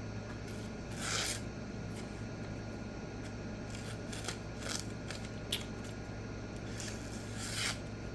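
A steel knife blade swished in five short, separate strokes, spaced irregularly about a second or more apart, over a steady low hum.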